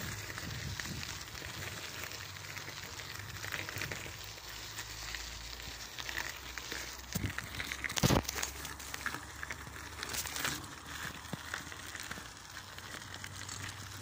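Crackling, rustling noise of a bicycle ridden along a path, scattered with small clicks and rattles, and one sharp knock about eight seconds in.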